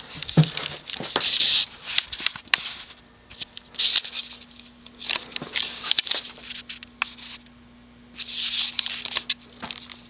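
Hunter 1886 Series ceiling fan's small motor running on low speed with a faint, steady hum, the typical Hunter hum. Intermittent rustling and sharp clicks sound louder over it.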